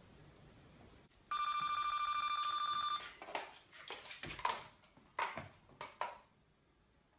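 An electronic doorbell or intercom rings: one steady, warbling tone lasting about a second and a half. It is followed by a series of about six short, sharp sounds.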